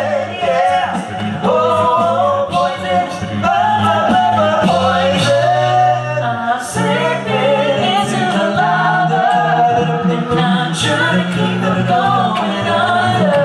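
A male a cappella group singing in close harmony over a held bass line, with sharp percussive hits keeping a steady beat.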